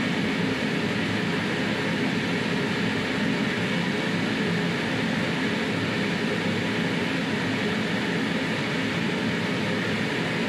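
Steady hum and rush of ventilation fans, unchanging throughout.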